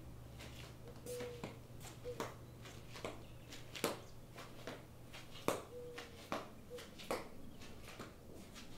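Sharp, irregularly spaced clicks and ticks, roughly one or two a second, over a low steady hum, with a couple of short faint tones twice.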